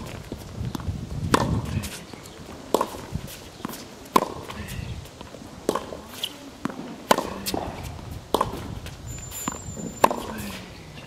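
Tennis rally: a tennis ball struck by rackets and bouncing on the court, sharp pops roughly every second and a half, with footsteps and shoe scuffs in between.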